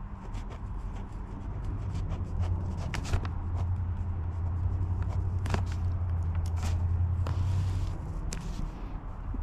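Ballpoint pen writing on lined notebook paper: short scratchy strokes and taps as letters are written. Under it, a steady low rumble, louder from about two seconds in and easing near the end.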